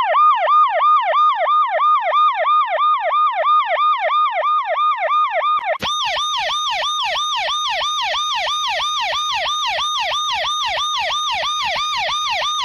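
Emergency vehicle siren in its fast yelp, the pitch sweeping up and down about four times a second. About six seconds in it switches abruptly to a brighter, harsher version of the same yelp.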